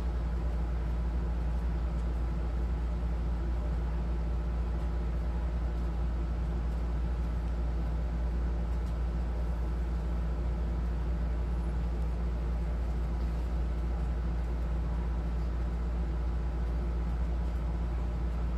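A steady low machine hum that holds level and does not change.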